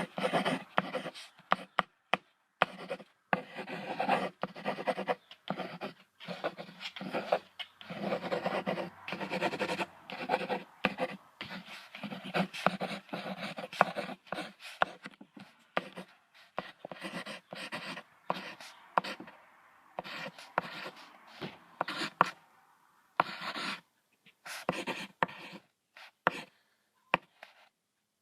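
Crocodile vocalising in a long run of irregular bursts, dense at first and sparser for the last few seconds.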